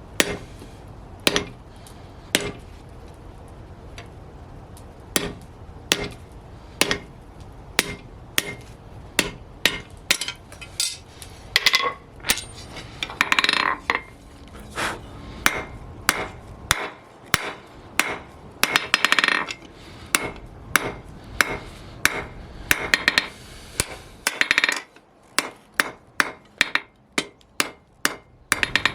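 Blacksmith's hammer striking steel flat bar on an anvil in a series of sharp, ringing blows. The blows come about one a second at first and grow quicker, nearer two a second, later on.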